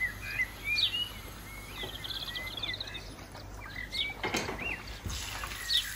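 A small bird chirps and twitters repeatedly throughout. About four seconds in there is a short sharp knock, and near the end hot oil starts to sizzle as fish go into the frying pan.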